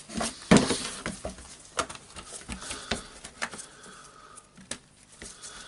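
Scattered clicks and knocks of the hard plastic housing of a DeWalt DCH213 rotary hammer drill being handled and its handle section pulled apart, the loudest knock about half a second in.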